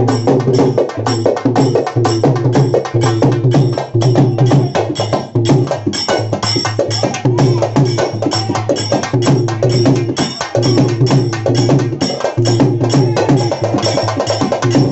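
Halgi frame drums played in a fast, unbroken rhythm, rapid sharp strokes on the tight drumheads ringing over one another.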